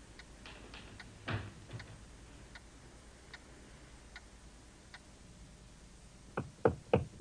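A clock ticking slowly and faintly, about one tick every 0.8 seconds, with a single soft thud just over a second in. Near the end comes a quick run of loud knocks, the loudest sound here.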